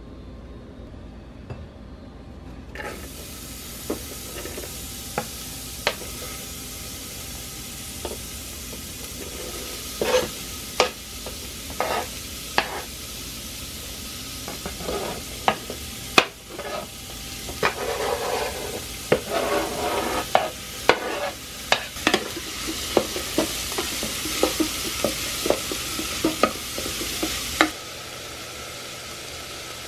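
Diced red onion and green pepper sizzling in hot oil in the stainless-steel inner pot of an electric pressure cooker, the hiss starting about three seconds in. A wooden spoon knocks and scrapes against the pot as the vegetables are stirred, most busily in the second half, and everything cuts off shortly before the end.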